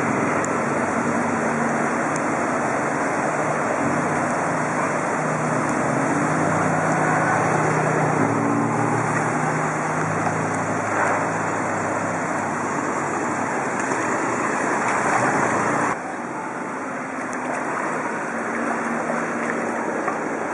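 Steady rushing noise of wind buffeting a bicycle-mounted camera's microphone, mixed with the swish of the bicycle's wheels pushing through flood water, with a faint low engine hum from motor traffic in the water. About three-quarters of the way through, the rush drops suddenly and becomes quieter.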